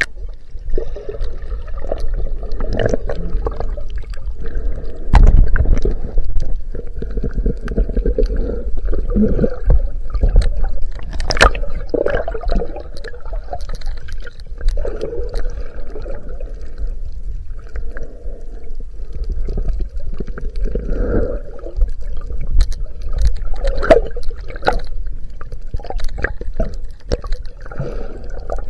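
Underwater sound picked up by a chest-mounted camera while snorkeling: water churning and gurgling against the housing with a heavy low rumble, swells as the arms stroke, and scattered sharp bubble clicks and pops.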